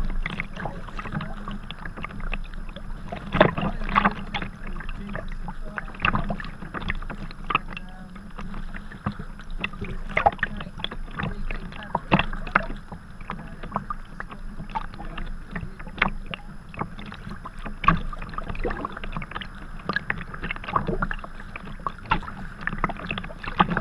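Sea kayak being paddled: paddle blades splash into the water at each stroke, and water washes and slaps along the hull right beside the microphone. The splashes come irregularly, about one every second or so.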